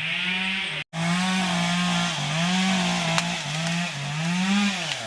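Chainsaw engine running, its pitch revving up and down and dropping away near the end. The sound cuts out briefly about a second in.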